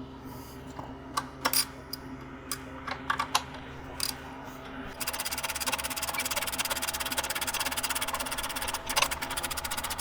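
Scattered clicks and knocks of parts and tools being handled during reassembly of an elliptical trainer. About halfway a steady, rapid mechanical ticking starts and keeps going.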